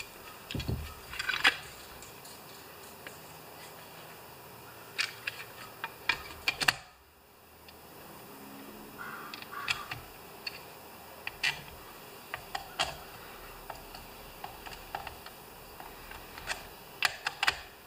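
Scattered light clicks and taps of small parts being handled while the recoil starter of a Homelite XP 1020 chainsaw is fitted together by hand: the starter housing, its cover and small screws knocking against each other and the bench.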